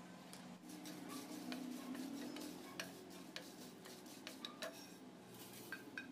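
A wooden spatula stirring whole spices dry-roasting in a nonstick pan: coriander seeds, peppercorns and dried red chillies give scattered light clicks and scrapes, over a faint steady low hum.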